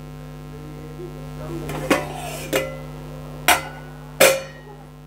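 Steel plate used as a lid taken off a steel cooking pot, with four sharp metallic clanks about a second and a half in, the last one ringing briefly. A steady electrical hum runs underneath.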